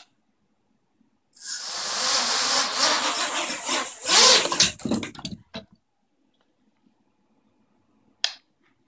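Quadcopter motors and propellers spinning up on the ground, running about three seconds with a thin high whine and a slightly wobbling level, then cutting out and winding down in a few stutters. A single short click near the end.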